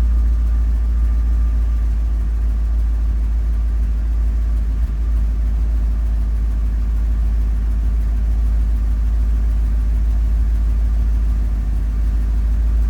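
Ford F-250's gasoline engine idling steadily on freshly gapped spark plugs.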